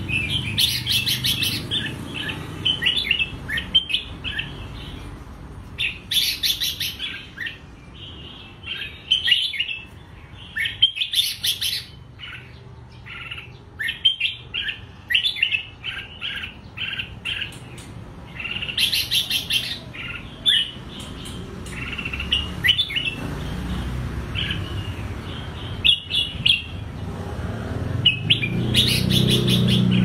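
Red-whiskered bulbul singing: bursts of short, clear warbled phrases, one after another with brief gaps. A low rumble builds up near the end.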